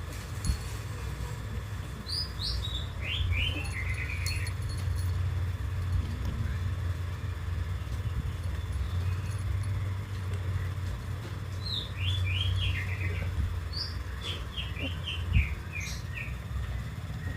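A small bird singing: three runs of quick chirps, each falling in pitch, over a steady low rumble, with a single thump near the end.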